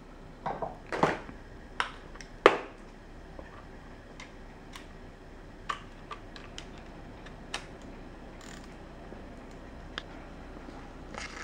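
Clicks and light metallic knocks from a digital torque wrench being handled and fitted onto a fastener. The louder knocks come in the first few seconds, followed by sparse faint ticks.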